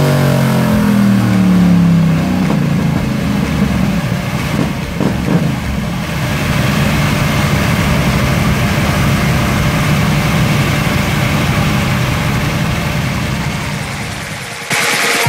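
Yamaha MT-07 parallel-twin engine on a motorcycle dyno, its revs falling after a full-throttle pull, then running steadily with a rushing noise underneath. It grows quieter toward the end.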